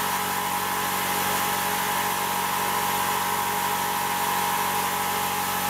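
A newly installed Quincy Q54 5 hp, 60-gallon air compressor, its twin-cylinder pump driven by an electric motor, running steadily while it breaks in without building pressure.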